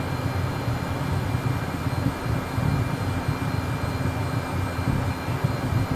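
Jet airplane engines running with a steady, deep rumble and a faint high whine held at a constant pitch.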